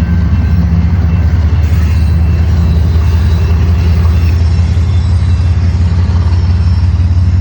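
Train passing close by: a loud, steady, low rumble that holds even throughout.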